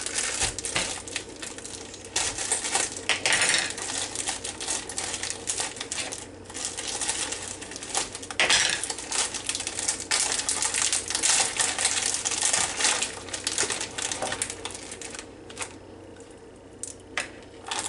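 Thin plastic wrap crinkling and crackling as sliced deli ham is pulled out of its packaging, thinning to a few light ticks in the last few seconds.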